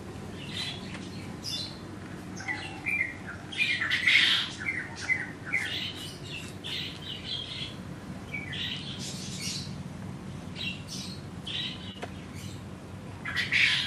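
Small birds chirping and twittering in short, irregular calls, loudest about four seconds in and again near the end, over a faint low steady hum.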